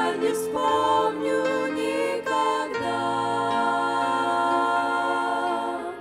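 Women's vocal ensemble singing a Russian-language Christian song in close harmony, settling about halfway through into one long held chord.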